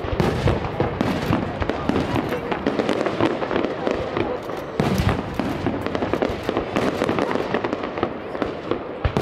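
Aerial fireworks going off in a rapid, continuous barrage of bangs and crackles, with heavier booms about five seconds in and again near the end.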